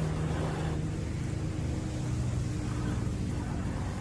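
Axial SCX10 II scale RC crawler's electric motor and gear drivetrain whining steadily under load on a steep dirt climb, its pitch dropping a little about a second in.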